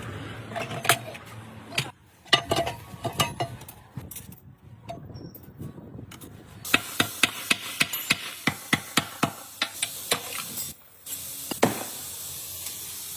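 Light taps and clinks of hand tools on metal machine parts: scattered knocks at first, then a fairly regular run of taps for a few seconds over a low hiss.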